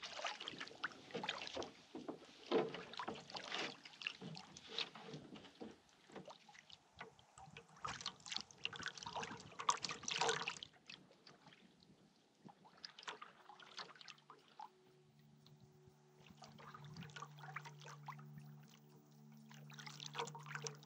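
Canoe paddle strokes dipping and splashing in lake water as the canoe pushes off from shore and gets under way, with water dripping and trickling off the blade. The splashing is dense for about the first ten seconds, then thins out as background music fades in.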